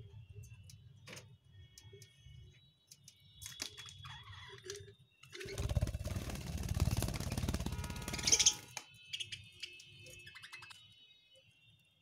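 Budgerigars chirping and chattering, with scattered clicks. About five seconds in comes a loud rustling flurry lasting about three seconds, a budgie's wings fluttering close to the microphone.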